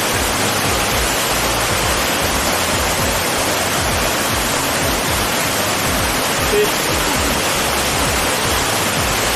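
Waterfall or cascading creek water rushing with a steady, loud, even roar of white noise.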